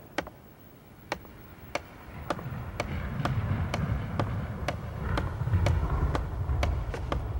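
Sharp, evenly spaced ticks, about one every half second, with a low rumble that swells from about two seconds in.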